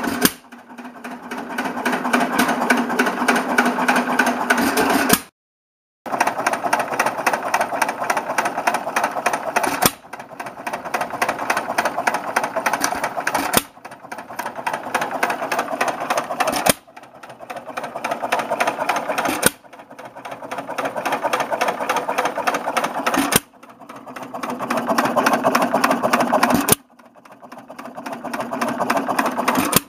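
Rebuilt Galloway 2¼ hp hit-and-miss engine running, a fast, steady mechanical clatter from its valve gear and spinning flywheels. The sound comes in several short stretches with abrupt breaks and a brief dropout about five seconds in, each stretch growing louder.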